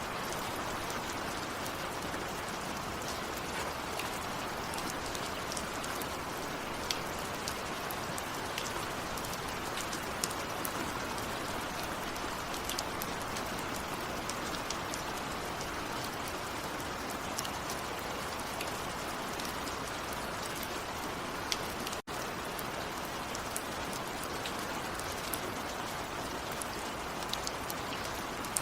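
Steady rain: an even hiss with scattered sharp drop hits. The sound cuts out for an instant about two-thirds of the way through.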